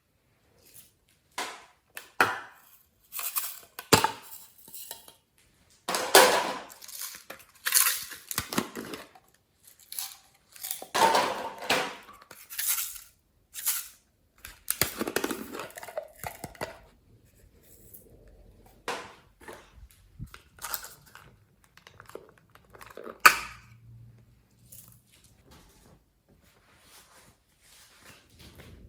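Slime being mixed and squished, giving irregular sticky clicks, pops and crackles with short smeary strokes. They are denser and louder at first and sparser later, with one sharp click about three-quarters of the way through.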